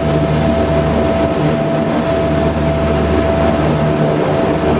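A BAe Jetstream 31's Garrett TPE331 turboprop engine heard from inside the cabin, running at steady taxi power. It makes a steady high whine over a low propeller drone.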